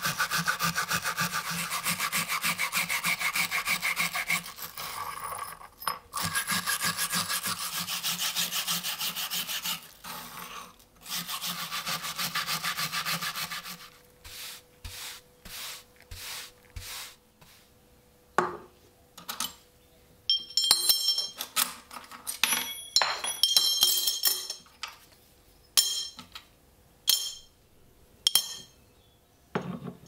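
A flat file rasping back and forth in quick strokes over the rusty steel can-opener blade of an old army pocket knife, scraping off rust, in several long runs through the first half. After that come scattered clicks and short ringing clinks as the parts are handled.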